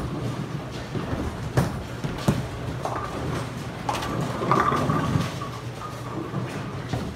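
Bowling alley noise: bowling balls rolling down the lanes with a rumble that swells about four seconds in, and a few sharp clatters of pins being struck in the first half, over a steady low hum.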